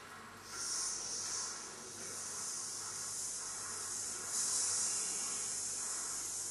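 Air hissing out of a radiator's opened bleed valve: trapped air escaping from the radiator. The hiss starts about half a second in, eases briefly, then comes back stronger a little past four seconds and holds steady.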